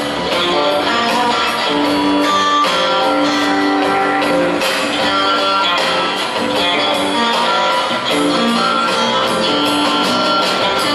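A live rock trio plays an instrumental passage: electric guitar over upright bass and a drum kit, with cymbals ticking on top.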